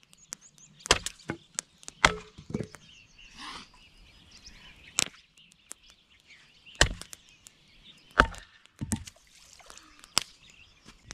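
Wood being chopped: about eight sharp knocks at uneven intervals, roughly a second or more apart.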